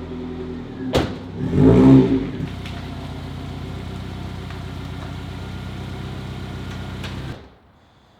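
1999 Honda CR-V's 2.0-litre four-cylinder engine idling, blipped once briefly about two seconds in, then idling steadily until it stops about seven seconds in.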